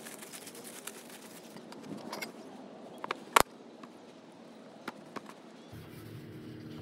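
Plastic bag crinkling as pizza dough is worked out of it onto the board, then a single sharp knock about three and a half seconds in as a steel bench scraper is set down on the plastic cutting board, with a few lighter taps around it. A low steady rumble starts near the end.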